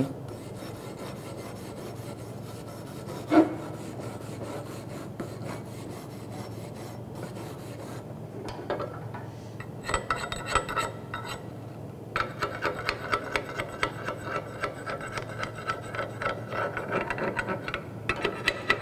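Wire brush scrubbing a freshly welded steel lap joint to clear slag and spatter off a flux-cored weld. From about eight seconds in, a steel hand tool scrapes the plate in quick repeated strokes with a metallic ring.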